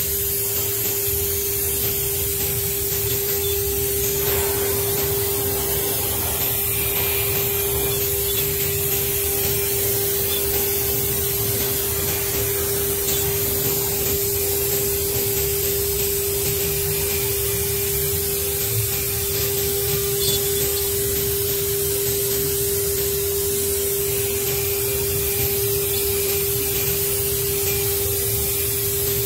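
CNC router spindle running with a steady, high whine while its bit cuts a letter groove into a wooden board, over a continuous hiss.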